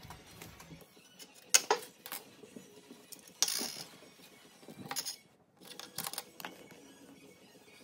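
Plastic clear files and acrylic keychain merchandise being handled on a table: several sharp clicks, the loudest about one and a half seconds in, and a brief rustle of plastic sheet about three and a half seconds in.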